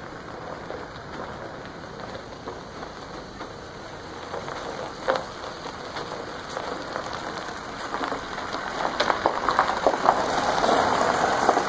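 A flatbed pickup truck rolling slowly across a gravel yard, its tyres crunching and crackling on the gravel. The crunching grows louder as the truck comes close.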